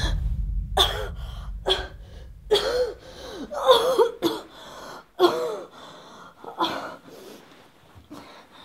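A badly hurt woman coughing and gasping in a string of about ten short, strained coughs and breaths, choking on the blood in her mouth.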